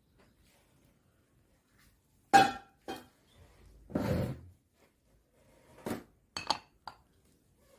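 Glass and kitchenware clinking and knocking: a sharp ringing clink about two seconds in, a longer knock a little later, then a few lighter clicks.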